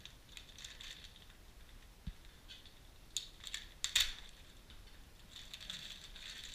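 Plastic parts bags crinkling and rustling in the hands, with a few sharp clicks and clinks of the bagged parts near the middle, the loudest about four seconds in.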